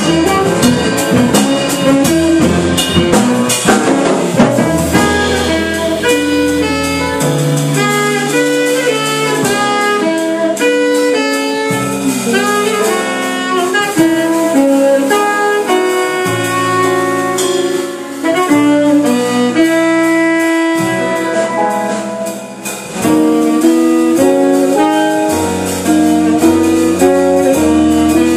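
Small jazz band playing live: saxophone carrying a melodic line over walking upright bass, drum kit, electric guitar and piano. Drums and cymbals are busiest in the first few seconds.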